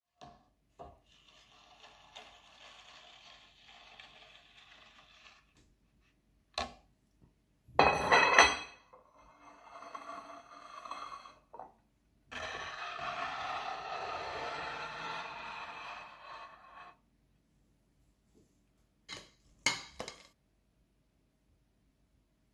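A wire whisk beats and scrapes mashed potatoes around a stainless steel bowl. A loud metallic clang with ringing comes about eight seconds in, followed by more scraping and a few sharp knocks near the end.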